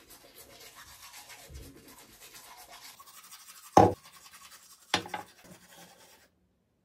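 Teeth being brushed with a manual toothbrush: a fast, scratchy back-and-forth scrubbing. Two loud knocks come about four and five seconds in, and the scrubbing cuts off suddenly near the end.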